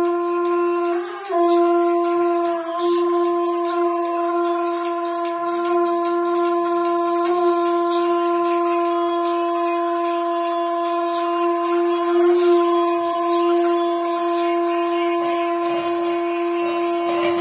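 Shankh (conch shell trumpet) blown in one long, steady held note that wavers briefly about a second in.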